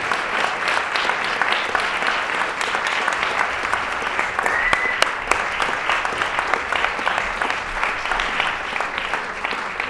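Theatre audience applauding, a steady, dense sound of many hands clapping.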